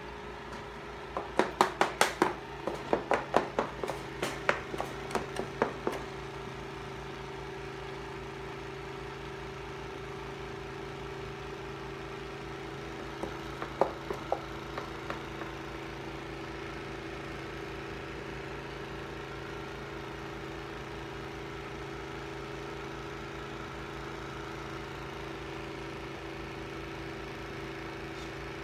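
Window air conditioner running with a steady hum. A run of sharp clicks or taps comes in the first six seconds, and a few more about fourteen seconds in.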